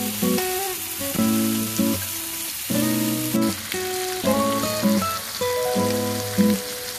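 Background music with a melody of changing held notes, laid over the steady hiss of ribeye steaks sizzling in a griddle pan on the stove.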